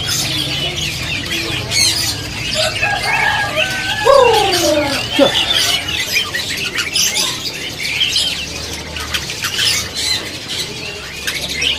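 Many caged songbirds chirping and whistling at once, a dense bird-market chorus of short high calls. About four seconds in, a lower whistle slides downward, standing out from the rest.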